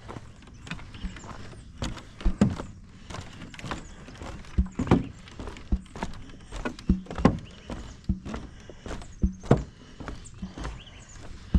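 Footsteps of a person walking on a dirt trail: a series of uneven knocking steps at a walking pace.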